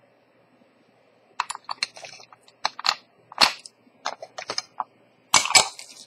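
An irregular run of sharp clicks and taps, as from small hard tools being handled and set down on a watchmaker's bench. They come in clusters, starting about a second in.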